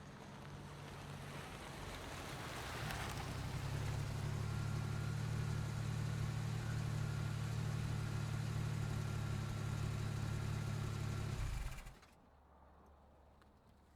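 Car engine running at low revs as the car pulls in, growing louder over the first few seconds and then idling steadily close by. It cuts off abruptly about twelve seconds in, leaving only a faint low rumble.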